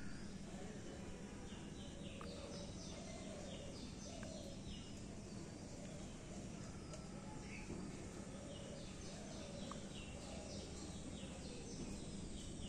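Birds singing: two runs of short, high chirps stepping down in pitch, over a steady low hum and background noise.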